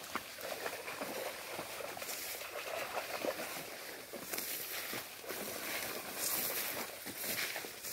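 Tall grass and reed stems rustling and brushing as someone pushes through the creek-bank vegetation, with irregular crackles and steps; the rustling grows louder in several bursts during the second half.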